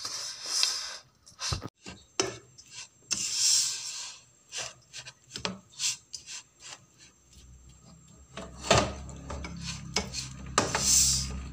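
A wooden spoon scraping and pushing a crumbly semolina mixture around a non-stick pan in irregular, repeated rasping strokes, with a few light knocks. A low steady hum comes in about two-thirds of the way through.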